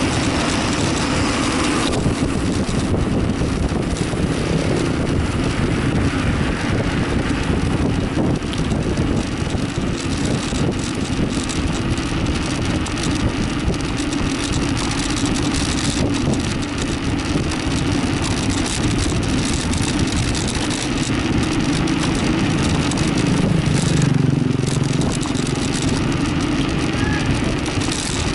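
Engine of the vehicle carrying the camera running steadily while it travels along the road, under a constant rush of wind on the microphone.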